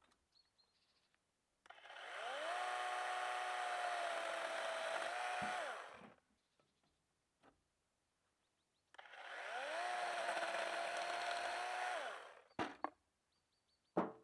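Electric chainsaw run twice, each time spinning up quickly to a steady high whine, holding for a few seconds and winding down when the trigger is released, with full quiet between the runs. A couple of sharp knocks follow near the end.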